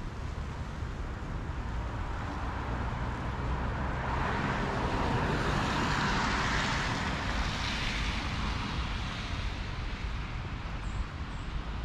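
A vehicle passing by: its noise swells up a few seconds in, peaks in the middle and fades away over several seconds, above a steady low rumble.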